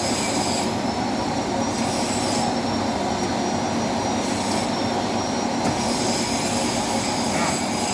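CD6240A engine lathe running under power, its gearing and spindle giving off a steady mechanical whir with a thin high whine; the seller calls its sound smooth.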